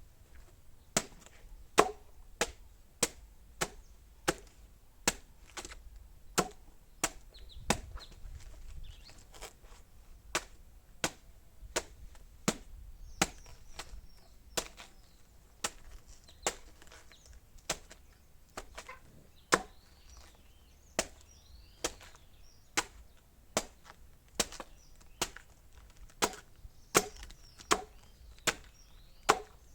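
Steady chopping of a banana stem, chopped up as cattle feed, with a sharp strike about every two-thirds of a second.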